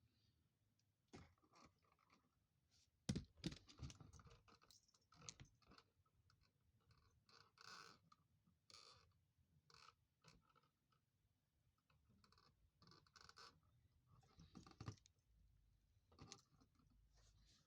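Faint, irregular clicks, scrapes and small knocks of hands and a tool working on the wiring of an open wall socket, with a few louder knocks about three seconds in and near the end.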